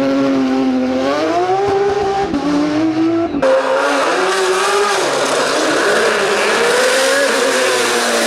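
Hill-climb race car engine at full throttle, its pitch rising and falling as it revs and shifts. About three and a half seconds in the sound switches abruptly to another stretch of hard running with a noisier edge.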